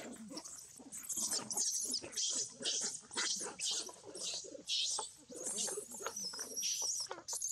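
Young macaques screaming and squealing in a scuffle: a run of short, shrill cries one after another, with a longer wavering scream near the end.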